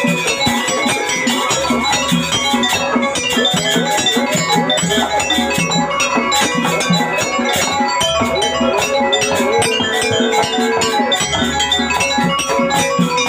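Jaranan music played live by a gamelan-style ensemble: tuned metal gongs and metallophones over drums in a fast, unbroken rhythm.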